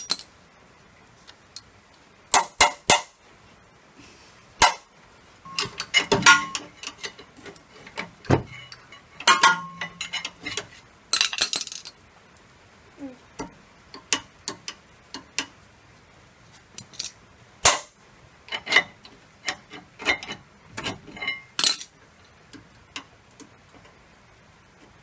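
Brake pads being tapped and pried out of a Toyota Sienna's brake caliper with a hand tool: irregular sharp metallic clicks and clinks, some ringing briefly, with short quiet gaps between.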